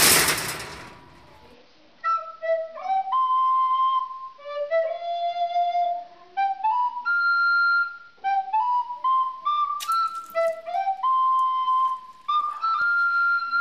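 A loud burst of noise that dies away within the first second, then a solo flute-like wind instrument playing a slow melody one note at a time.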